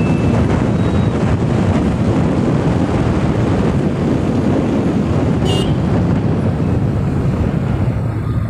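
Motorcycle on the move, with a steady rush of wind and road noise over the engine's drone. A brief horn toot sounds about five and a half seconds in.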